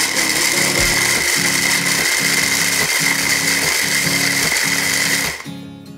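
Electric hand blender with its chopper bowl attachment running, grinding fried corn kernels into coarse crumbs: a loud, steady motor whine that stops about five and a half seconds in.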